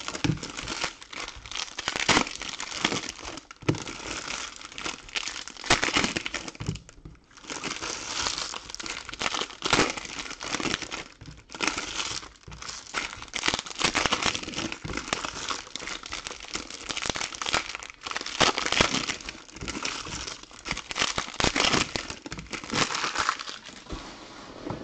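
Foil trading-card pack wrappers being torn open and crumpled by hand: a dense crinkling rustle, with brief pauses about 7 and 11 seconds in, dying down near the end.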